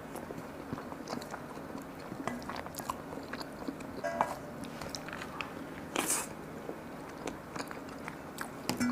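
A person chewing and biting food close to the microphone: many small wet mouth clicks, with a short hiss about six seconds in.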